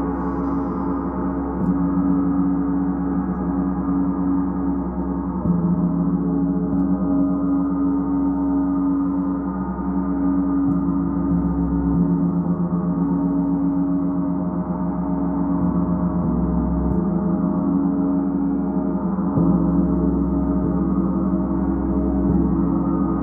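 Large suspended gong played continuously with a felt-headed mallet: a sustained, dense mass of many overlapping ringing tones, renewed by fresh strokes every few seconds.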